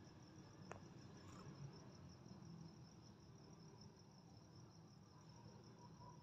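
Faint cricket chirping, an even, rapid high pulse that goes on without a break, with one light click about two-thirds of a second in.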